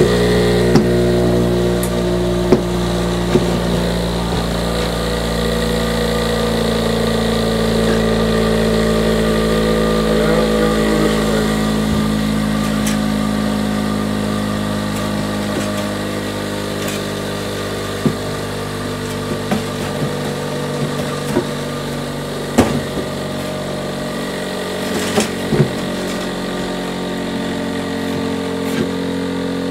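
Bench grinder running steadily while a steel clamp part is held against the wheel, with a few light knocks in the second half.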